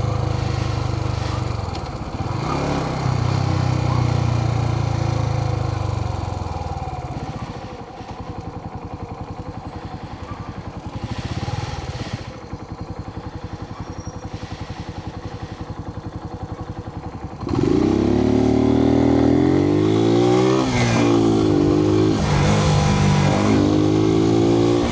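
Suzuki TU250X single-cylinder motorcycle engine heard from inside the rider's helmet. It runs, then drops to a quiet, even idle thump. About two-thirds of the way in it opens up loudly, the pitch climbing and dropping back several times as it accelerates through the gears.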